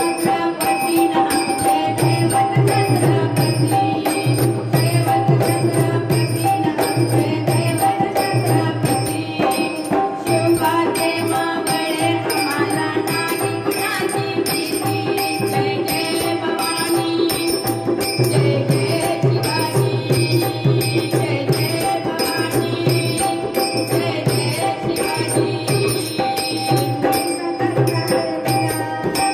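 Powada, a Marathi ballad, playing with a steady drone and an evenly repeating low drum beat.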